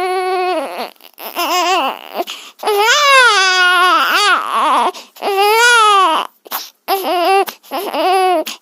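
A baby crying in a run of high wails, about seven in all, each rising and falling in pitch and broken by short breaths between them.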